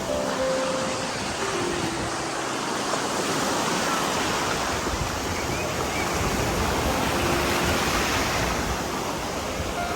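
Sea surf washing steadily onto a sandy beach, a continuous even rush of waves.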